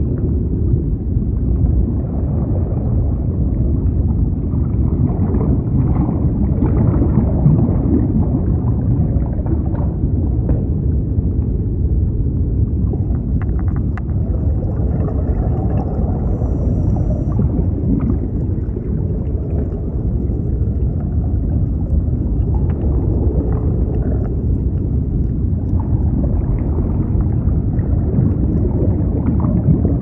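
Muffled underwater ocean ambience: a steady low rumble of moving water with some gurgling.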